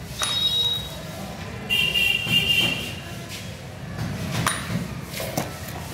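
Plastic-packed plumbing fittings handled and set down, with scattered clicks and knocks. A short high tone sounds just after the start, and a longer, lower tone with an unknown source follows about a second and a half later.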